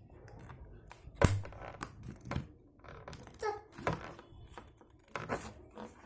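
Retail packaging being opened by hand: irregular rustling with a series of sharp clicks and snaps, the loudest about a second in.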